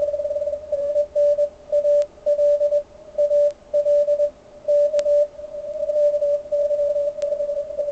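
Morse code received on an Icom IC-7600 transceiver in CW mode through its narrow 50 Hz filter, heard as a single clean mid-pitched tone. About a second in, a station's keyed dots and dashes stand out for some four seconds, then the tone runs nearly unbroken.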